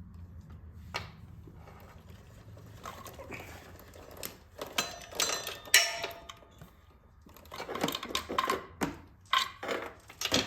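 Old rusty O-ring motorcycle drive chain clinking and rattling as it is handled, with a run of sharp irregular metallic clicks from about halfway through.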